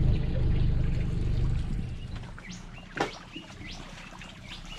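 A boat motor runs with a low, steady drone that fades away about two seconds in. Then birds chirp in short, quick calls, with a single knock about three seconds in, and water runs off a yabby pot as it is lifted out of the water.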